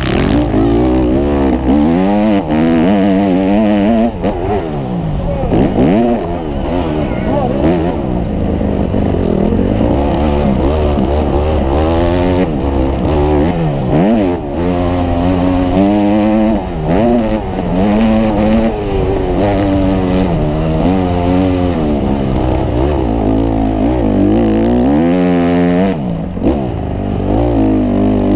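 Motocross bike engine heard close up from on the bike while racing, revving up and falling back over and over as the throttle is opened and closed through the turns and jumps.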